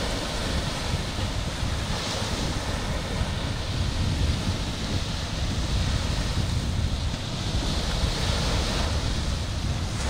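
Small sea waves breaking and washing up a beach, with wind buffeting the microphone as a low rumble. The wash swells about two seconds in and again near the end.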